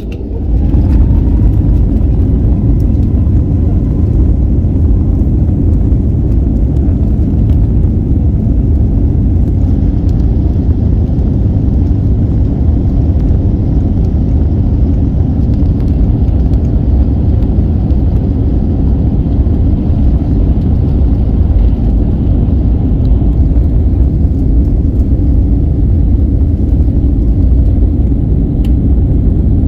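Airbus A321neo jet engines and airframe rumbling during the takeoff roll, heard inside the cabin. About half a second in the noise rises sharply as a faint whine climbs and settles into a steady tone, then a loud, steady low rumble carries on.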